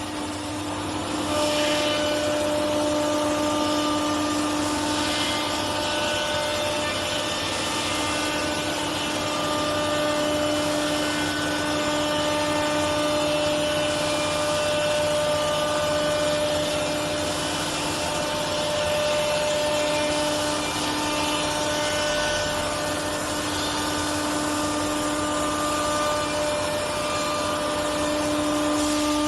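CNC router spindle running with a steady whine over a continuous machine hiss; the whine fades briefly twice.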